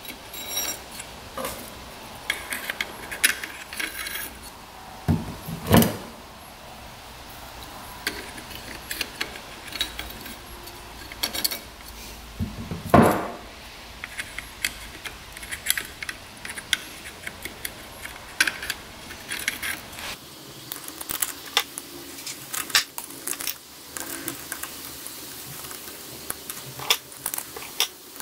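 Clutch plates being fitted one by one into the clutch basket of a 1993 Honda CR125 engine: scattered light metallic clinks and clicks as the friction and steel plates are handled and slid onto the hub. There are two louder bumps, about five and thirteen seconds in.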